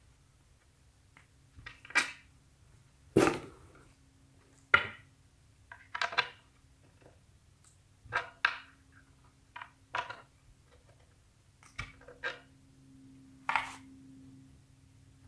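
Light knocks and clicks from a skateboard deck and its hardware being handled on a wooden table, about a dozen separate taps at irregular intervals.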